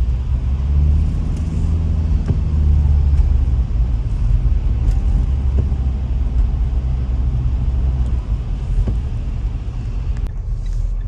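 Mitsubishi Pajero Sport 2 on the move, heard inside the sound-insulated cabin: a steady low rumble of engine and road noise with a light hiss above it. The hiss drops away about ten seconds in.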